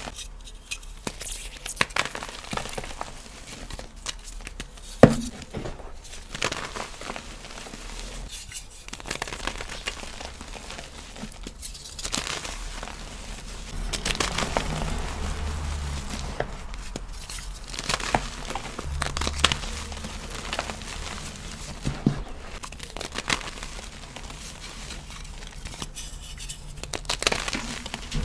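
Cubes of dyed BSN gym chalk (magnesium carbonate) being crushed and crumbled, with a steady dry crunching and crackling and one sharp snap about five seconds in.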